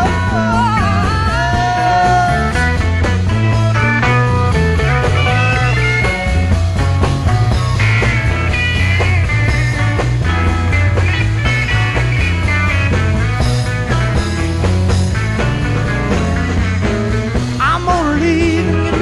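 Live psychedelic rock band playing an instrumental passage: a lead line of bending, wavering notes over steady bass and drums.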